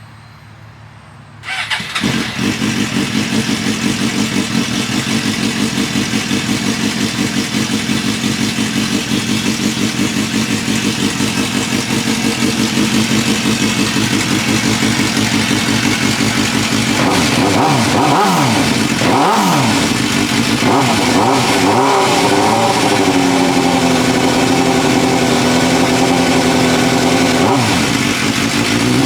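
2005 Suzuki GSX-R750's inline-four engine starting about a second and a half in, then idling steadily to warm the oil. Around two thirds of the way through its pitch dips and rises briefly a couple of times before it settles back to a steady idle.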